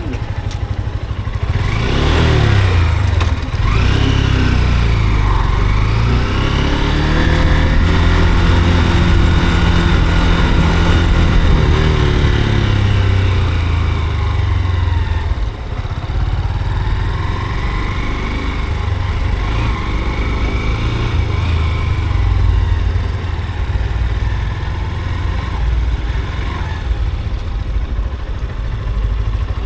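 Honda NX190's single-cylinder engine riding through city traffic. It revs up quickly twice in the first few seconds, climbs and holds a long steady pitch, and drops off about halfway through. It then accelerates again and settles into a steady cruise.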